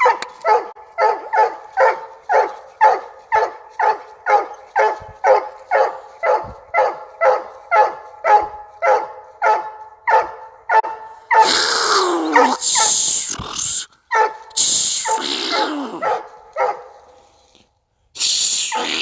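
Coonhound barking treed at a raccoon up the tree, with a steady run of short chop barks about two a second. After about eleven seconds it breaks into a few longer cries that fall in pitch.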